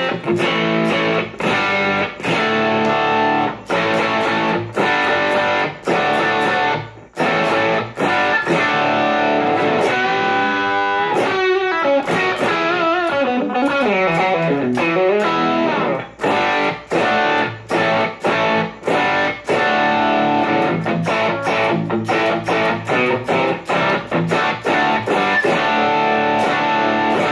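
Electric guitar played through an M-Vave Tank-G capture of a Dream tone with a JHS Bonsai overdrive in its TS10 mode, with a little reverb. Mostly chords in short rhythmic stabs, with a single-note lead run with string bends and vibrato in the middle.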